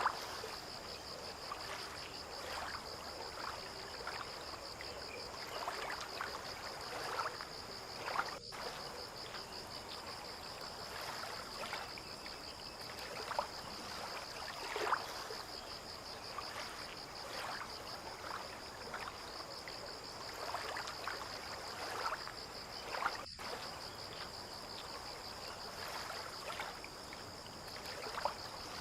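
Harbour water lapping in small, irregular splashes, under a steady high-pitched insect trill.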